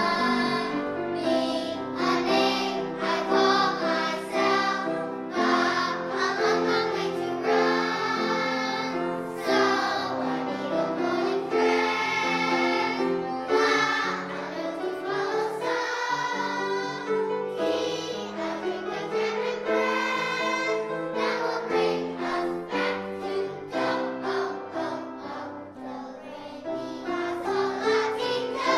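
A children's choir singing a song together, with held notes and phrases that change pitch throughout.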